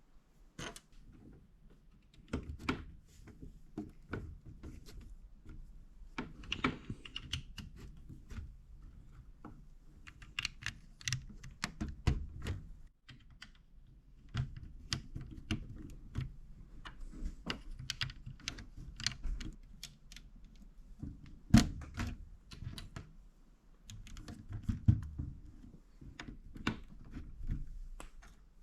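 Plastic LEGO-style building bricks being handled and pressed together: irregular clicks and taps, with a sharper snap about three-quarters of the way through.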